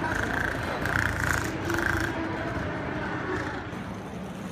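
Busy railway platform ambience beside a high-speed train during boarding, with three short high tones in the first two seconds.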